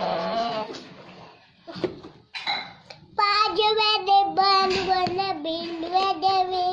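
A young child's voice singing, with a short vocal sound at the start, then from about three seconds in one long unbroken phrase of held notes that step up and down in pitch.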